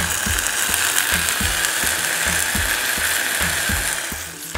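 Vinegar hissing and sizzling as it hits a hot saucepan of onions and red peppers, deglazing the pan; the loud hiss dies down near the end. Background music with a steady beat underneath.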